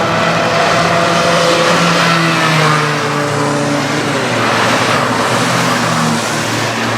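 Several Citroën C1 race cars' small engines running together, their pitches overlapping, with one falling away about four seconds in. Under them is a steady hiss of tyres on the wet track.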